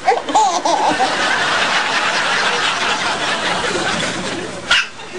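Laughter: high, wavy voice sounds in the first second, then breathy, noisy laughing, with one short sharp sound near the end.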